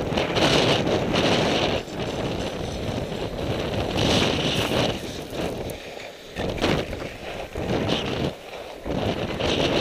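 Wind buffeting the microphone of a camera carried by a moving skier, mixed with the hiss of skis sliding over snow. The rushing rises and falls, dropping away briefly twice in the second half.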